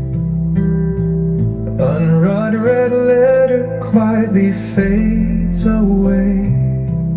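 Music: a song's instrumental passage led by guitar, plucked and strummed, with a gliding melody line about two seconds in.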